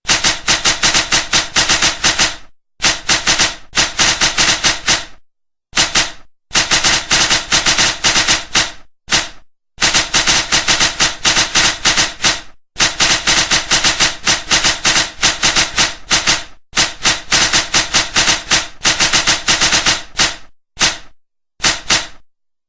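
A short, sharp sound effect played by a typing-sound app on every keystroke, firing about five times a second in runs of one to three seconds that stop dead between bursts of typing.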